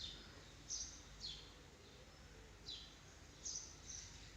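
Faint, high-pitched chirps of small birds: about six short, downward-sweeping calls spread irregularly over a few seconds.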